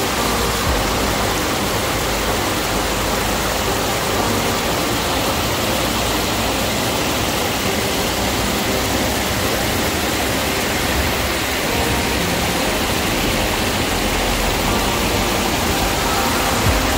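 Mountain stream rushing over small rocky cascades: a steady, even rush of water.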